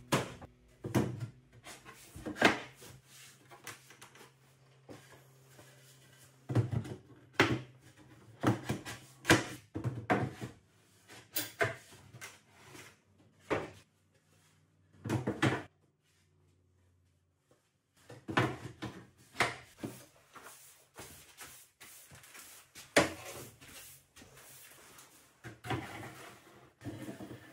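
Irregular wooden knocks and clatter from a pine closet being handled: drawers slid in and out and closet doors opened and closed. There is a pause of about two seconds a little past the middle.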